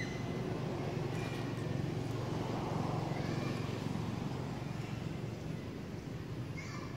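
Steady low outdoor rumble with a few short, high chirps rising and then holding.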